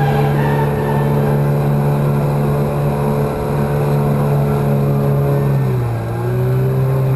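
Yamaha 9.9 hp two-stroke kicker outboard running steadily as it pushes a loaded 17-foot boat along, over the wash of water; its note drops slightly about three-quarters of the way through.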